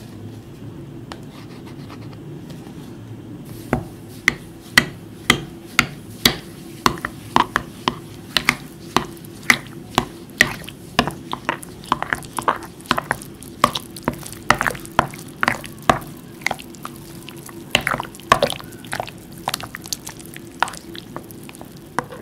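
A plastic spoon stirs grainy psyllium husk into wet red jelly liquid in a glass bowl. From about four seconds in, the spoon clicks against the glass about two to three times a second along with wet stirring.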